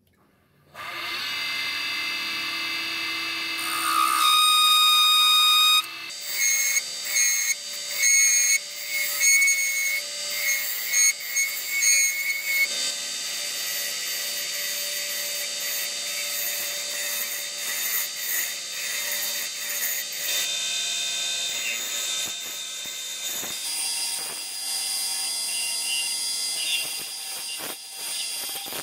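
Wood lathe starting up about a second in and running with a steady whine, then a chisel cutting the spinning lignum vitae spoon handle: short uneven cuts at first, then a continuous scraping cut as shavings fly off.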